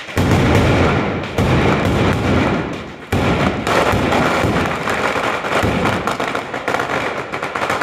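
Ground-laid firecracker battery (an Italian street batteria) exploding in rapid succession: a dense, continuous rattle of bangs that starts abruptly, dips briefly and surges again about three seconds in, then begins to thin out near the end.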